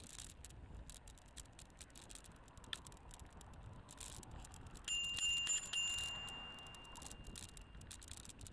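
Bicycle bell rung in a quick run of three or four dings about five seconds in, its ring dying away over about two seconds. Under it, a steady clicking and rattling of the bike rolling over a rough gravel track.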